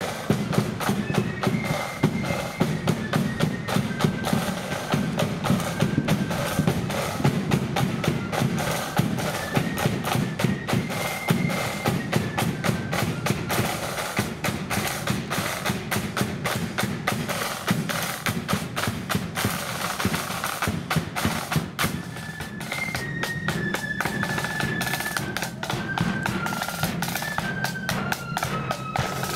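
A marching flute band playing: side drums beating and rolling with cymbals under a melody on flutes.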